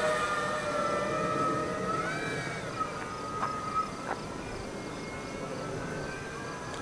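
Electric motor and propeller of an E-flite Cessna 150 RC model plane whining in flight, the pitch drifting slightly and the sound slowly fading as the plane moves away.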